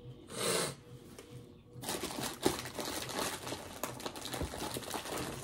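Plastic snack wrapper crinkling and rustling as it is handled, starting about two seconds in.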